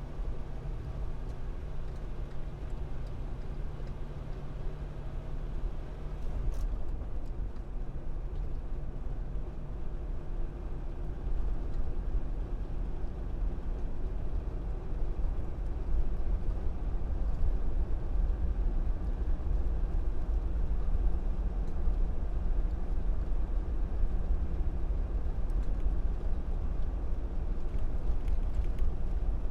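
Car driving by: a steady low rumble of engine and tyres, with a hum that drops away about six seconds in, growing somewhat louder after about ten seconds.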